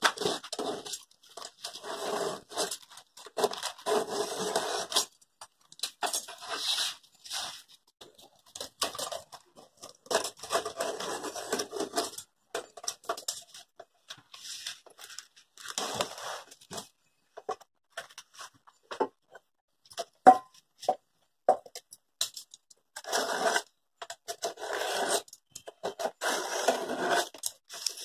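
Fresh banana leaves being cut and torn into round plates around a steel template on a wooden board: irregular bursts of rustling, scraping and tearing, with a few sharp clicks between.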